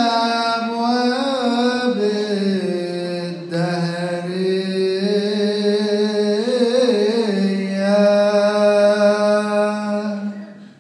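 Coptic Orthodox liturgical hymn chanted in unison by a group of voices, long held notes with slow wavering melismatic turns, fading out shortly before the end.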